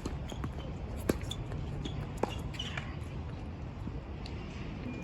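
Wind buffeting the microphone as a steady low rumble, with a few sharp knocks of a tennis ball, the loudest about a second in and another just after two seconds.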